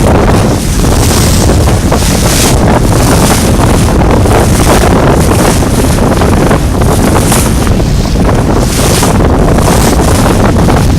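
Strong wind buffeting the microphone: a loud, continuous low rumble and rushing hiss, with the hiss surging in gusts every second or two.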